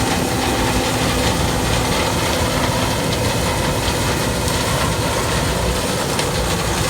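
Combine harvester with a corn header running steadily while harvesting corn: a loud, even machine noise with a steady hum.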